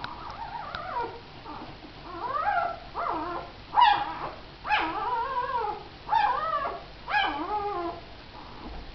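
Newborn puppies crying: a run of about six short, high whimpering squeals that rise and fall in pitch, the sharpest about four seconds in.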